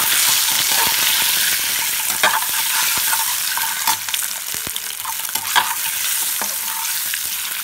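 Peeled boiled eggs sizzling steadily in hot oil in a metal pan, while a slotted spatula turns them, scraping and clicking against the pan a few times.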